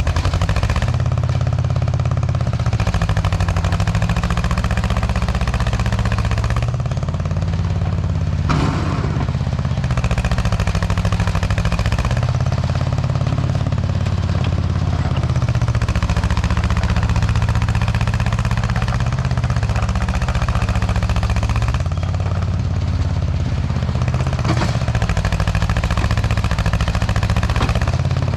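Heavy equipment engine running under working load, its pitch dipping and recovering several times as the load changes. One sharp knock about eight and a half seconds in.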